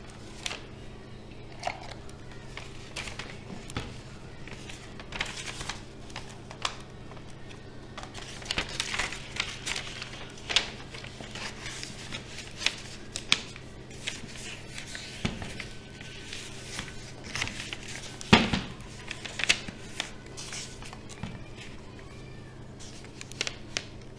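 A sheet of paper rustling and crinkling as it is handled and wrapped around a plastic bottle, with scattered taps and knocks. The loudest knock comes a little past the middle, all over a steady low hum.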